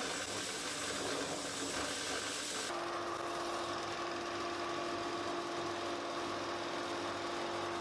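Electric wood router running steadily at speed while cutting along a board edge, with a steady whine that starts about three seconds in.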